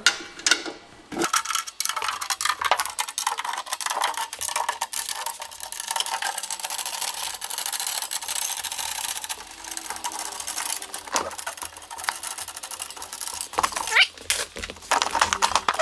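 Tension rods being unscrewed by hand from the lugs of a Pearl metal-shell snare drum: a fast, continuous run of light metallic clicking and rattling.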